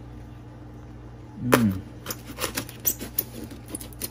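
White foam shipping box being handled and worked open on a counter: a loud squeak about a second and a half in, then a run of scratchy clicks and crackles.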